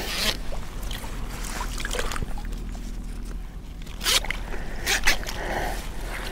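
Rustling and light water sloshing as a caught wild carp is handled at the water's edge for release, with a few short sharper rustles about four and five seconds in.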